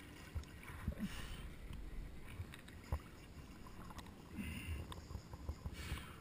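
Motorboat sitting on the water with its engine running low: a steady low rumble, scattered knocks and thumps, and a few brief hissy rushes of water or wind.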